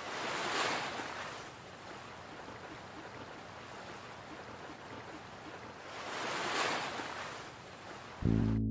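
A steady hiss that swells and fades twice, about six seconds apart, like waves washing in, as part of an ambient mix. Near the end a bass-heavy music passage cuts in suddenly.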